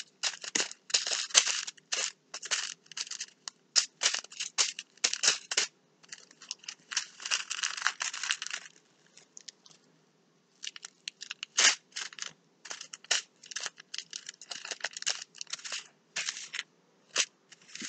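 Small plastic zip-lock bags of diamond-painting drills being handled one after another, their plastic rustling with many short crackles and the drills shifting inside, with a pause of a second or two about halfway.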